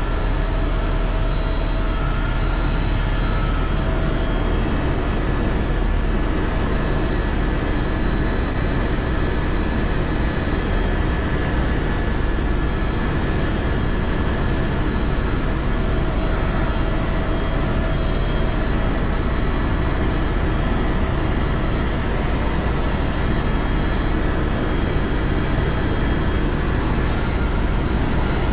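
Helicopter in flight heard from inside the cabin: a steady, unbroken drone of engine and rotor, with a few thin high whining tones running through it.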